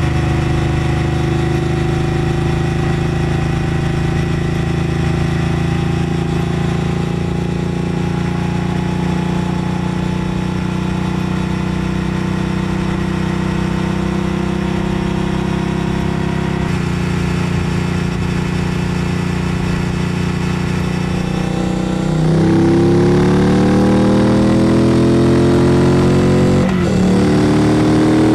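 Triumph Bonneville Bobber Black's 1200 cc parallel-twin engine pulling steadily at cruising speed. About 22 seconds in the throttle opens and it gets louder, the engine note climbing as the bike accelerates, dropping at a gear change about five seconds later, then climbing again.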